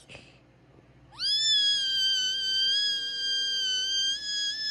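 A person's high-pitched squeal: it sweeps up about a second in, then holds one steady pitch for nearly four seconds.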